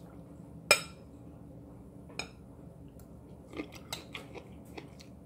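Metal spoon clinking against a dish while scooping up vegetables: one sharp clink about a second in, then a series of lighter clicks and taps in the second half.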